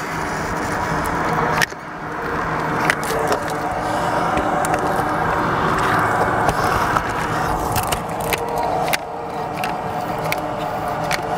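A steady engine-like hum with several held tones. Over it come scattered sharp clicks and light scrapes from a caulk gun squeezing roofing sealant onto asphalt shingles.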